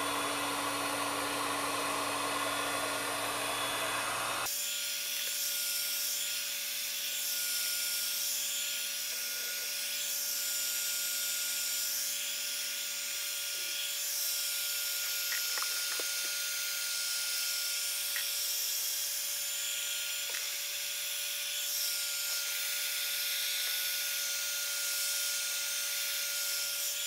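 Electric heat gun running steadily, its fan whining and hot air rushing, as it shrinks a molded heat-shrink boot onto a wiring harness branch point. Its sound changes abruptly about four seconds in, then holds steady.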